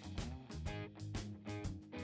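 Background music with a steady beat, made of plucked, guitar-like notes over a bass line.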